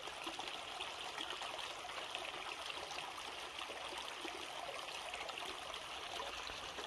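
Small trout creek running over its stones: a steady, even trickle and rush of flowing water.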